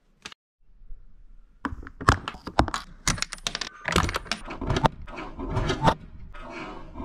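Hands handling a Reely Eraser RC car's plastic parts: a dense run of sharp clicks and knocks, giving way to a rustling scrape near the end as the body shell is moved.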